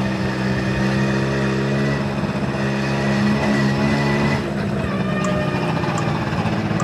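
A bored-out 65cc Honda Motocompo's two-stroke single-cylinder engine running at a steady cruising speed. Its even drone shifts and eases slightly about four and a half seconds in.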